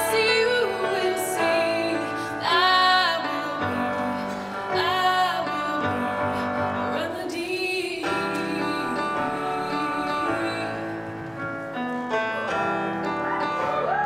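Young female vocalist singing a slow ballad into a microphone, holding long notes with vibrato, over a piano accompaniment.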